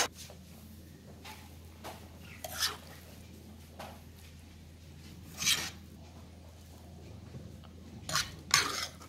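Metal ladle scooping cooked whole masoor dal from a pan into a ceramic bowl: a handful of short scrapes and taps of the ladle against the pan and bowl, spread out, the loudest about halfway and near the end. A low steady hum runs underneath.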